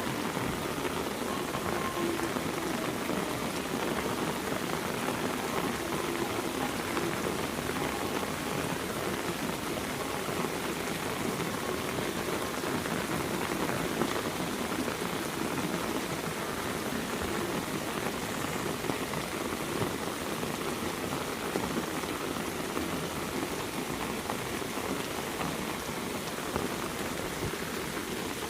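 Heavy rain falling steadily, drops pattering on surfaces in a dense, even hiss with scattered sharper drop hits.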